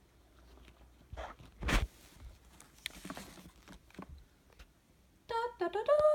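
Handling noises: scattered knocks and rustles as a phone and a padded camera bag are moved about, the loudest a thump just under two seconds in. Near the end a boy starts humming a few held notes.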